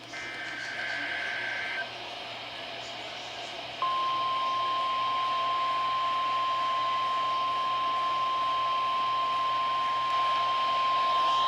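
NOAA Weather Radio weekly test received over the air. A burst of warbling two-tone SAME digital header data lasts about two seconds, then there is radio hiss. From about four seconds in, the steady 1050 Hz warning alarm tone sounds, all over static and a low hum.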